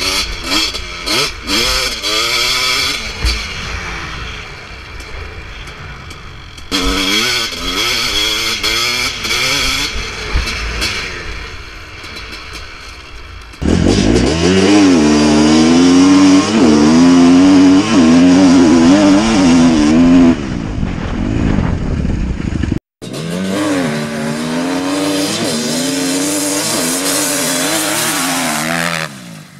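Kawasaki KX250 motocross dirt bike engines revving up and down as they are ridden hard over dirt, the pitch rising and falling again and again. The sound comes in several stretches that change abruptly, and it is loudest from about 14 to 20 seconds in.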